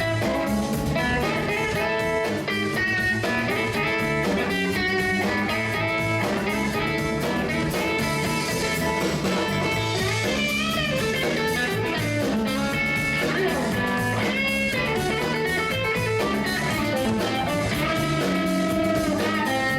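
Background music: a blues-style song led by electric guitar, with drums.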